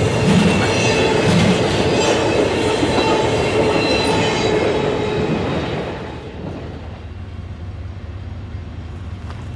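Double-stack intermodal well cars rolling past on the rails, with clattering wheels and a thin wheel squeal. The sound drops off about six seconds in, once the end of the train has gone by, leaving a quieter low rumble.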